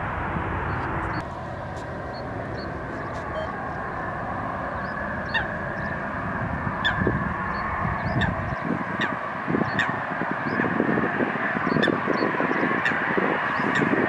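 Geese honking again and again, the calls coming thicker from about five seconds in, over the steady rumble of a jet airliner's engines, an Airbus A350 on final approach.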